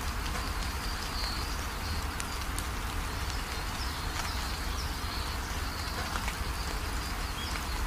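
Steady rain on a corrugated metal roof, with a stream of water pouring off the roof edge. Faint high chirps come through now and then.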